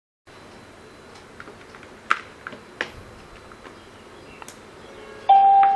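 A few faint sharp clicks, then near the end a short, steady electronic beep from a GSM alarm control panel.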